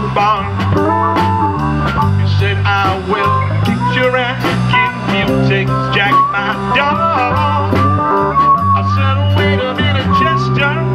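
Live blues-rock band playing an instrumental passage: electric guitar, bass guitar and drums, with a harmonica played cupped to a hand-held microphone carrying wavering lead lines over a steady bass and beat.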